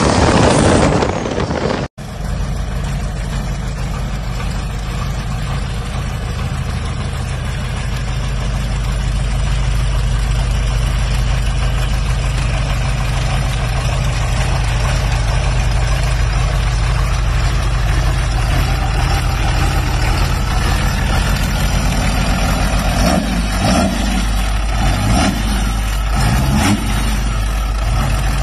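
Cummins turbo-diesel engine in a Hummer H1 idling steadily, with a few short rises and falls in pitch near the end. It opens with a second or two of a loud boat engine that cuts off abruptly.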